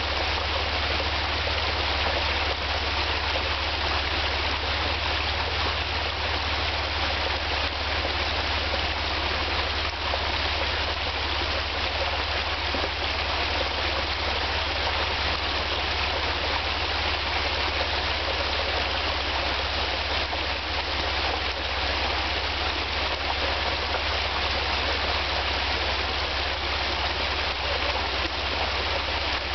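Steady rush of a creek running over rocks, with the low, even hum of an idling off-road vehicle's engine underneath.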